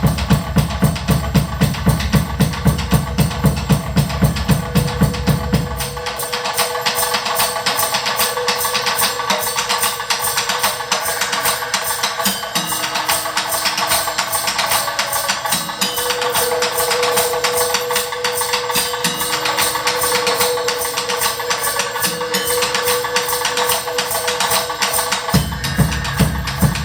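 Electronic dance music from a live set with a fast, steady beat. The kick and bass drop out about six seconds in, leaving quick high percussion and a held note, then come back in near the end.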